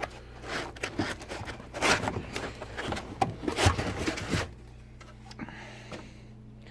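Handling noise: rubbing, scraping and irregular clicks for about four and a half seconds, then it stops and only a steady low hum remains.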